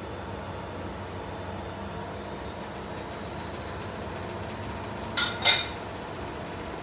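Steady low kitchen hum, with two quick clinks of kitchenware near the end, the second louder and ringing briefly.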